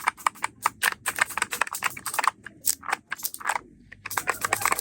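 Fast typing on a computer keyboard: a rapid run of key clicks, broken by a short pause a little after three seconds in.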